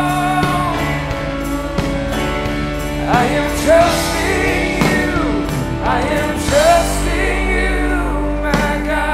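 Live worship band playing a slow song, held chords under a drum kit, with a singer's voice coming in with sliding, drawn-out phrases about three seconds in.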